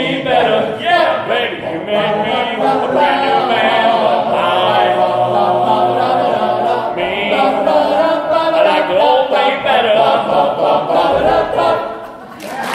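Men's a cappella chorus singing in close harmony through the final line of the song, with long held chords. The singing dies away about twelve seconds in, and applause breaks out right at the end.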